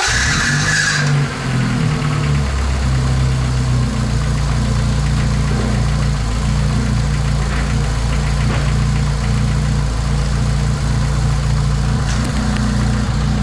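Lada Niva's four-cylinder petrol engine just started, its revs dropping in the first second or so and then settling into a steady idle. It is running on fresh oil right after a diesel-fuel flush meant to clear hydraulic valve-lifter knock.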